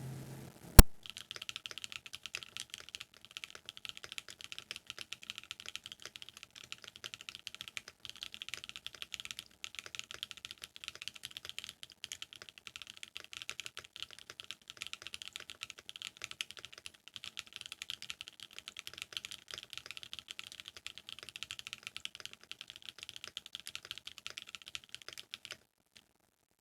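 Steady, fast typing on a gasket-mounted MRE65 mechanical keyboard with JWK-made Oooolong switches and a polycarbonate plate. The keys sound clacky and high-pitched. A single sharp click comes just under a second in, and the typing stops shortly before the end.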